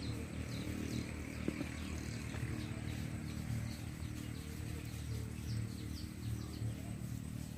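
Outdoor ambience: a bird gives short, falling chirps about twice a second over a steady low rumble. There is one sharp tap about one and a half seconds in.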